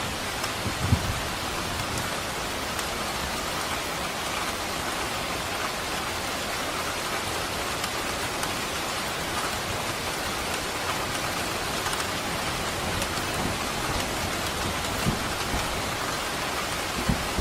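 Steady rain falling, an even hiss of drops, with a few brief low thumps about a second in and again near the end.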